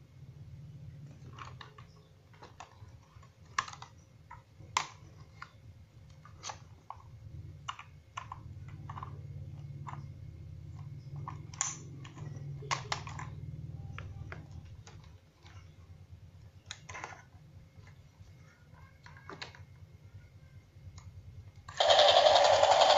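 Plastic toy helicopter being handled and turned over in the hands: scattered plastic clicks and knocks over a low hum. About 22 s in, the toy's battery-powered electronic sound effects switch on loudly.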